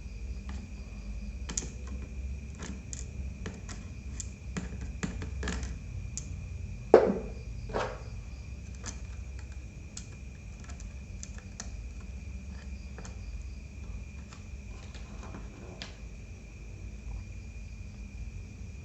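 Scattered small clicks and taps of a laptop's parts being handled and fitted back together, with one louder knock about seven seconds in. A steady high chirring of crickets runs underneath.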